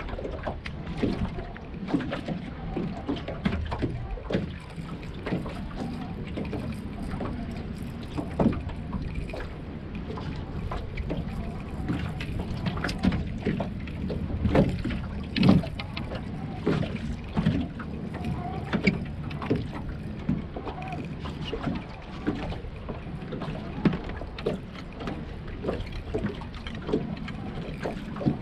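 Irregular knocks and clatter on a small fishing boat over a steady low rumble, with no pattern to the strikes.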